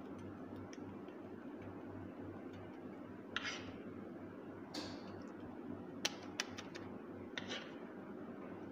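Blended spice paste being spooned onto fried chicken pieces in a metal baking tray: a few short scrapes and taps, with a quick cluster of clicks about six seconds in, over a steady low hum.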